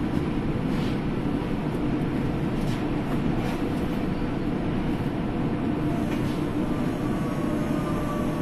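Düsseldorf Airport SkyTrain, a suspended monorail car, running on its elevated track, heard from inside the car as a steady rumble. A faint falling whine comes in near the end as it slows into the Terminal C station.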